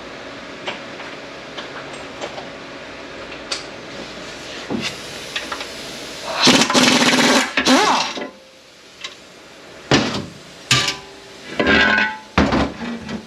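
Metal tools and gearbox parts clinking and knocking during teardown of an SM465 manual transmission, with a loud harsh burst of about a second and a half some six seconds in and a run of sharp knocks near the end, over a steady background hum.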